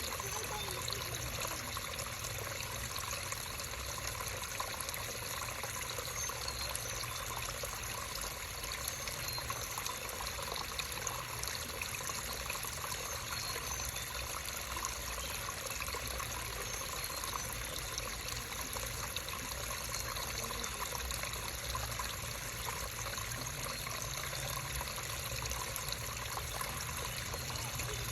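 Small creek trickling and babbling steadily over rocks, an even rush of water with many small splashes.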